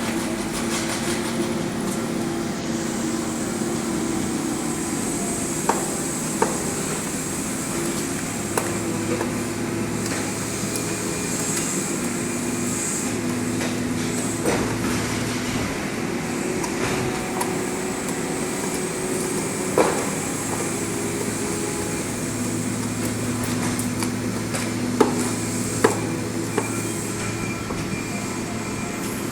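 Excavator's diesel engine running steadily at work, with a scattering of sharp metal clanks.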